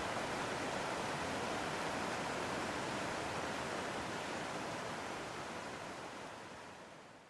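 Steady rush of fast-flowing water, a creek in flood or a waterfall, fading out near the end.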